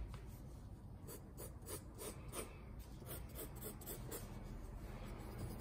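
3B graphite pencil sketching on drawing paper: faint, quick scratchy strokes, about two to three a second.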